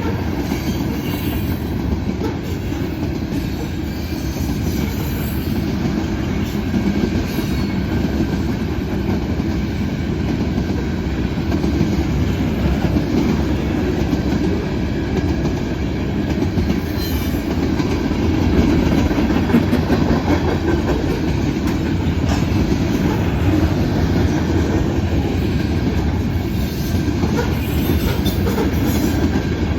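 Freight cars of a CP manifest train rolling past, a steady rumble of wheels with clickety-clack over rail joints and brief faint wheel squeals.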